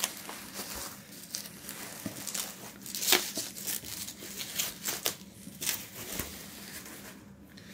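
Bubble wrap and plastic packaging being handled and pulled off a book, crinkling and rustling with scattered sharp crackles, the loudest about three seconds in.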